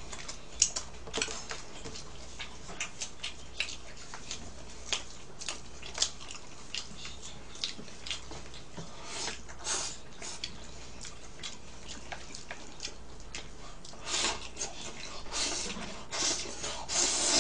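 Close-up eating sounds: chewing with many small scattered clicks, from the mouth and from chopsticks against bowls. A few louder rushing bursts come near the end.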